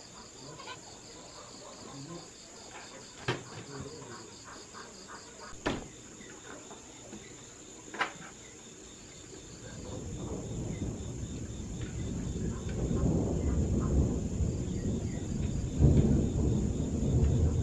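Crickets and other night insects chirping steadily in a fast pulsing pattern, with a few sharp clicks. About halfway through, a low rushing noise builds up under them.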